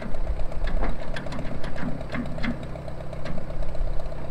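An engine idling steadily with a fast, even ticking rhythm.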